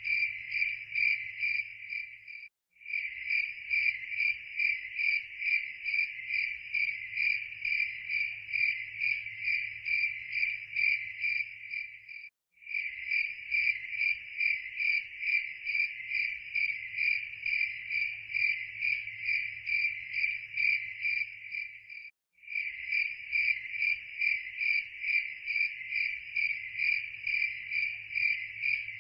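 Crickets chirping in an even, steady rhythm of about two chirps a second. The chirping cuts out briefly three times, about ten seconds apart.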